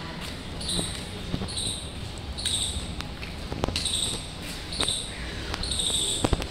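A short, high chirp repeating about once a second, with a few light slaps of a toddler's bare feet on wet paving tiles, mostly in the second half.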